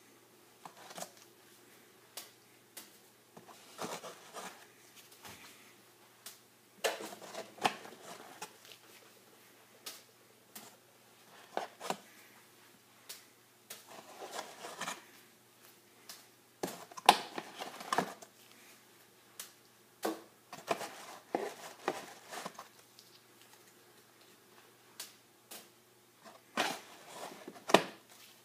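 Irregular sharp taps and soft thuds, several in quick clusters with a little rustle between: a tennis racket striking tea bags and the tea bags dropping onto a laminate kitchen worktop.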